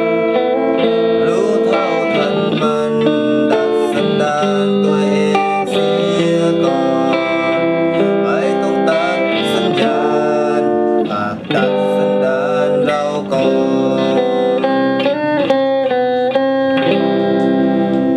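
Guitar-led instrumental music: the instrumental close of a song.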